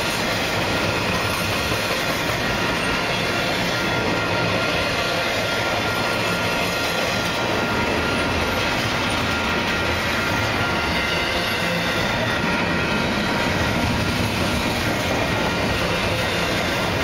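Union Pacific double-stack intermodal freight train's well cars rolling past close by: a steady rumble and rattle of steel wheels on rail, with a faint steady high whine over it.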